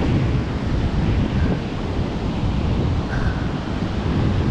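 Surf breaking on an ocean beach, a steady rushing wash, with wind buffeting the microphone.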